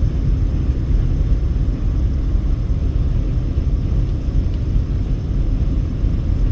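Steady road and engine rumble heard inside a car cruising at highway speed, mostly deep and even throughout.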